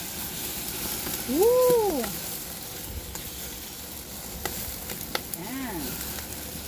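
Skewered pork cheek sizzling over the open flames of a grill as its fat drips onto the fire, with a few sharp pops while a brush bastes the sticks.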